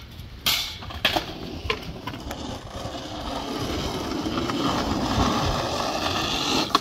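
A skateboard dropped onto asphalt with a sharp clack about half a second in, then the wheels rolling over rough asphalt, growing steadily louder as the rider comes closer.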